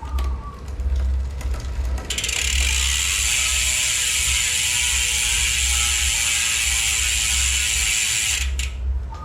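Road bike's rear freehub ticking as the rear wheel spins freely, the pawls clicking: a few clicks, then from about two seconds in a fast, steady, loud ticking that stops near the end.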